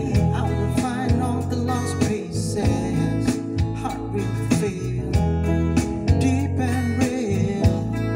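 A song with singing, guitar and heavy sustained bass played through a car audio system fitted with Peerless component speakers, their tweeters in custom pillar pods, heard inside the cabin.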